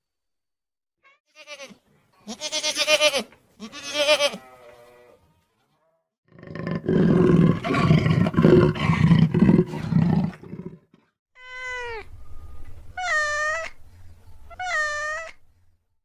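A string of farm animal calls: a few short pitched calls, then a long loud coarse call lasting about four seconds, then three short calls that rise and fall in pitch.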